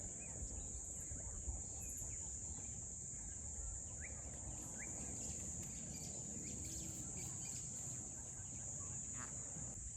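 A steady high-pitched insect trill, like crickets, with a few short bird chirps over a low background rumble.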